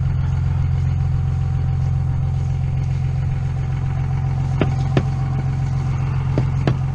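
An engine idling steadily, with a few light knocks of footsteps on wooden dock planks in the second half.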